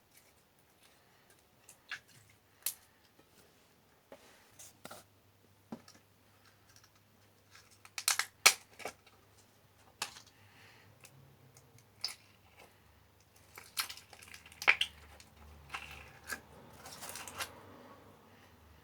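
Slime being mixed and squeezed by hand, giving irregular sticky clicks and pops, the loudest cluster about eight seconds in.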